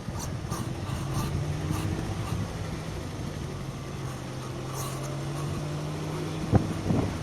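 Ford Mondeo Mk3 with its left wheel squeaking: short high squeaks come in a quick irregular run in the first two seconds and again near five seconds, over a steady low hum from the car. A couple of sharp knocks near the end.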